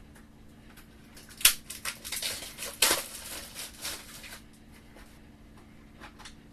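Crinkling and tearing of plastic wrapping with several sharp clicks, in a burst from about a second and a half in to about four seconds in, as a jigsaw puzzle's packaging is opened.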